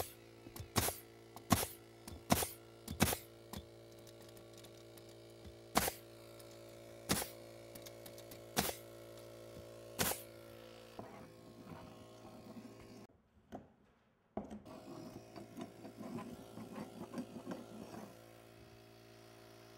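Pneumatic nail gun firing nails through plywood subfloor into the joists, about ten sharp shots: quick at first, then one every second or so, stopping about ten seconds in. Under them an air compressor hums steadily, straining to keep up with the gun. After the shots come a few seconds of clattering and shuffling, and a brief dropout.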